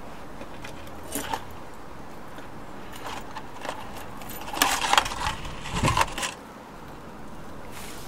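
Metal hanging-basket chain clinking and jangling as it is handled and its links joined, in scattered bursts that are busiest about five to six seconds in, with a dull knock among them.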